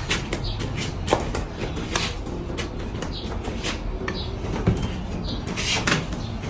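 A scatter of short clicks and knocks over a steady hiss, with a brief hissing burst near the end.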